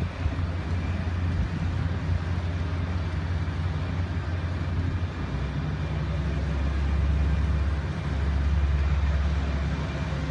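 Motor yachts' engines running as the boats cruise past, a steady low rumble that grows louder about halfway through.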